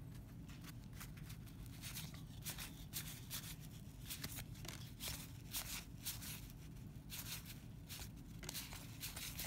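A stack of 1991 Donruss baseball cards being flipped through by hand: faint, irregular flicks and slides of card against card.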